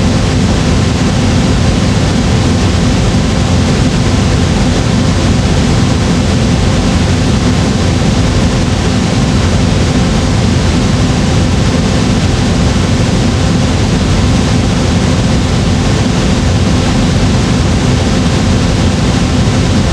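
Flamethrower sound effect: a continuous, steady rush of burning flame, heaviest in the deep range, with no breaks or changes.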